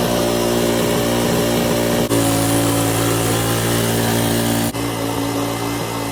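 Small engine running steadily, with its tone changing abruptly twice.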